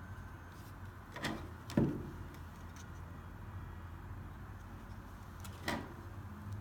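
Handling sounds of a plastic handheld barcode scanner and its USB receiver on a wooden tabletop: a few short knocks and rustles, the loudest a little under two seconds in and another near the end, over a steady low hum.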